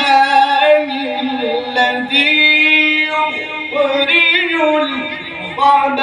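A man reciting the Quran in the melodic tajweed style through a microphone, drawing out long ornamented notes over several phrases.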